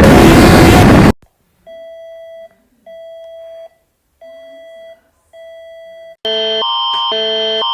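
Emergency alert tones: a loud noisy blast, the end of Peru's alert, cuts off about a second in. Then come four steady beeps of one pitch about 1.2 s apart, Indonesia's alert. Near the end Canada's Alert Ready attention signal starts loud, a chord of tones switching back and forth about twice a second.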